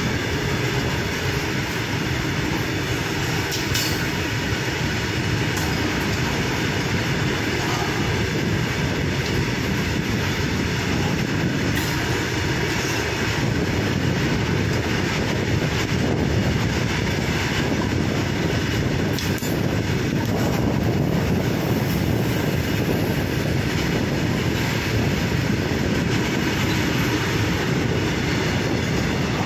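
A loaded freight train's open wagons rolling steadily past: a continuous rumble of steel wheels on the rails, with a few sharp clicks now and then.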